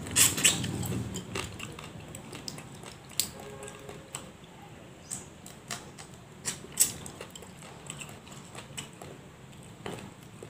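Close-up eating sounds: a person chewing and crunching crab (kasag), with irregular sharp clicks and crackles as the shell is bitten and picked apart by hand.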